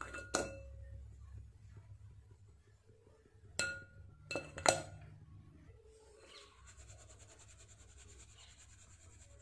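Utensils clinking against a glass bowl while dry cake ingredients are mixed and sifted: a few sharp, ringing clinks near the start and again around the middle, then a faint steady hiss.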